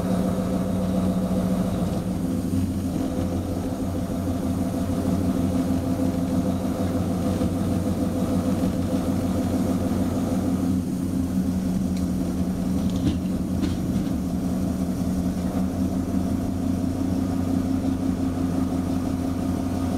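Diesel locomotive engine running steadily, heard from inside the driving cab while the locomotive moves slowly along the track.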